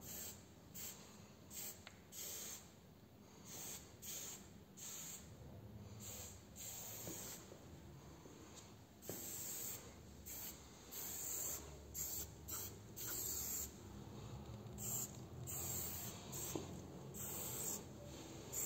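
A marker scratching across paper in quick, irregular strokes, each a fraction of a second long, as graffiti letters are sketched.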